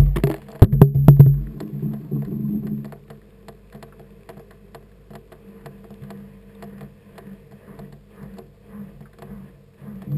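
Washing machine heard from inside its drum: the motor hum and knocking of the tumbling load stop about two to three seconds in, leaving only faint scattered ticks during the pause, and the drum starts turning again right at the end.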